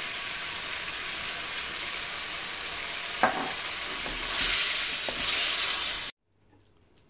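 Boneless chicken pieces sizzling steadily as they fry in a spiced yogurt sauce in a wok. There is a single knock about three seconds in. From about four seconds in, a wooden spatula stirs the chicken and the sizzle grows louder, then it cuts off abruptly near the end.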